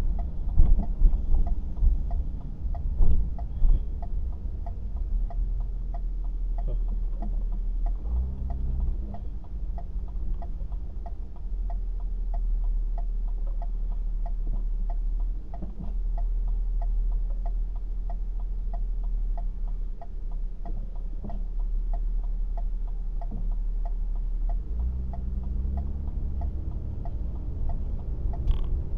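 Low rumble of a vehicle heard from inside the cabin, with a steady, even ticking, and an engine hum that comes up about eight seconds in and again near the end.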